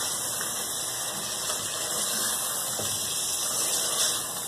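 Chicken and potato pieces frying in oil in a metal pot: a steady sizzle, with a spatula stirring through them.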